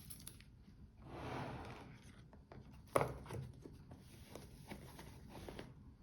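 Handling noise from a watch being unboxed: a brief rustle, then a sharp click followed by several lighter clicks and taps.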